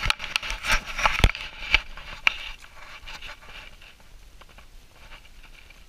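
Slush and snow crunching and scraping at an ice-fishing hole as a trout is released into it by hand: a quick run of sharp crackles and clicks over the first two seconds or so, then it settles to faint rustling.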